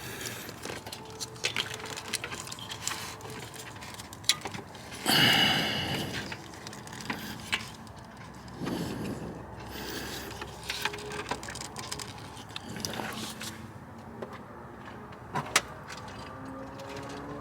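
Irregular metallic clicks, clinks and scrapes of hand tools and parts being worked at a car's oxygen sensor, with a louder scraping rush about five seconds in.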